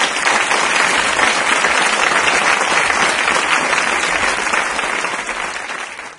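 Audience applause: dense, even clapping that eases off slightly near the end and then cuts off.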